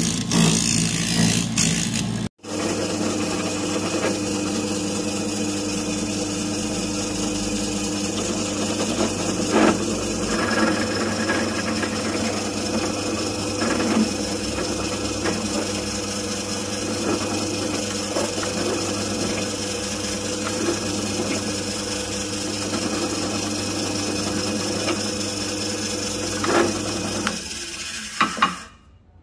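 A metal bracket ground against a spinning thin disc for about two seconds. After a brief cut, a drill press motor runs steadily while a twist drill bores through the metal plate, and it winds down near the end.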